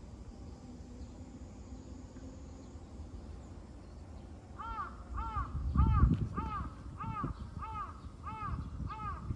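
A crow cawing: a run of eight even caws, a little under two a second, beginning about halfway through, over a low rumble.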